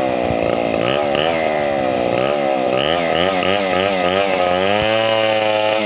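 Two-stroke chainsaw engine running, its pitch rising and falling several times a second, then holding a steady high pitch near the end.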